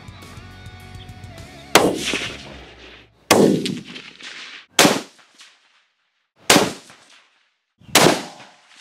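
Guitar music that stops about two seconds in, then five rifle shots from a Savage 110BA in .300 Winchester Magnum, about one and a half seconds apart, each ringing out briefly after the crack.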